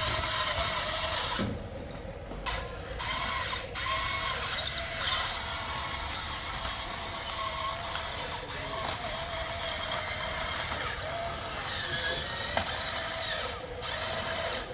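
Electric motors and plastic gearboxes of a Huina 1594 RC excavator whirring steadily as it works, cutting out briefly a few times as the controls are released.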